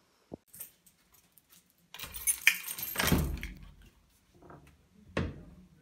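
Handling noise as a handheld camera is carried through a doorway: a light click, a second or so of rustling and clattering, and a sharp knock near the end.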